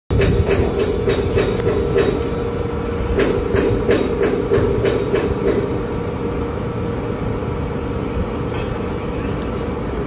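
Crane machinery running with a steady hum and rumble, under metal clanking and rattling in strong wind. The clanks come irregularly, several a second in the first half, and thin out after about six seconds.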